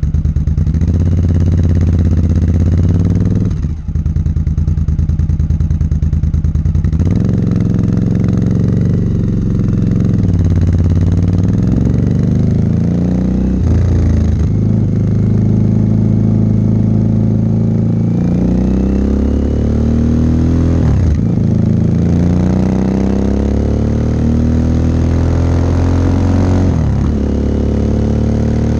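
2006 Kawasaki KLV1000's V-twin engine through a Scorpion exhaust with the baffles in, heard right at the silencer while riding. The engine note climbs in several pulls as the bike accelerates, dropping back briefly between them, with a short sharp dip about four seconds in.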